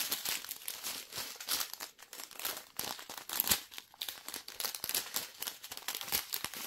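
Small clear plastic zip bags of round diamond-painting drills crinkling as they are handled and flipped through: a dense, irregular crackle.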